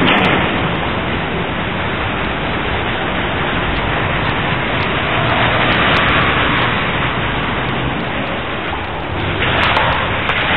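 Steady rushing noise of running water, swelling slightly near the end.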